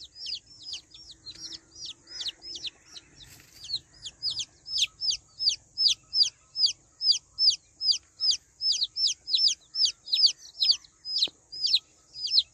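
Baby chick peeping: a fast, regular series of loud, high cheeps, each sliding down in pitch, about three a second, growing louder a few seconds in.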